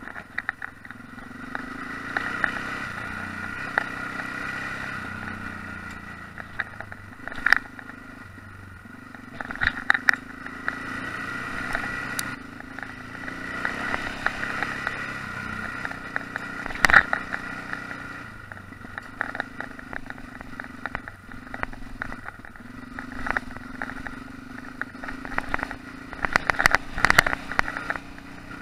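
Yamaha XT660X's single-cylinder engine running on a gravel track, rising and falling with the throttle. Sharp knocks and clatter from the rough surface come through it, the loudest a bit past halfway.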